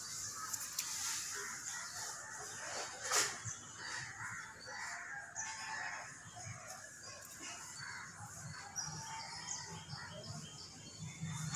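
Faint bird calls over outdoor background noise, with one sharp click about three seconds in.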